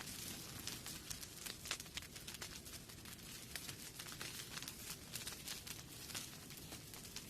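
Rain falling at night, many irregular drops tapping close by over a steady soft hiss.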